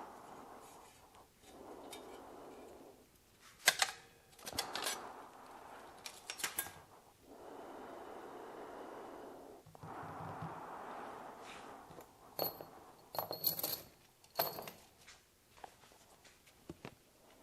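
Small clinks and rattles of metal parts and tools being handled while broken graphite vane debris is cleared from a vacuum pump, a few clinks ringing briefly near the end, with soft hissing stretches in between.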